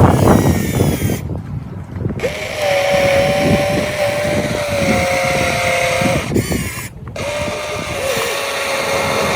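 Small electric motor of an RC construction machine whining at a steady pitch, after a rougher noise in the first two seconds; the whine breaks off briefly about six seconds in and resumes.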